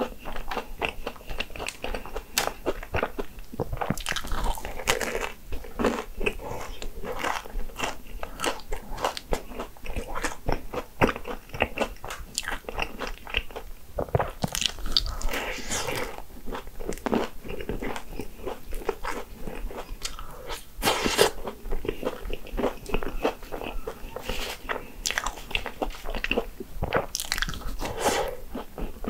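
A person eating Hong Kong egg waffle: crisp bites and chewing in an irregular run of crunches.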